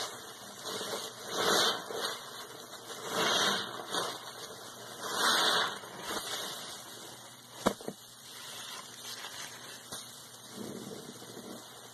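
Sudsy sponge squeezed by gloved hands: wet squelching and running water in three swells about two seconds apart, then quieter, with a single sharp click about two thirds of the way through.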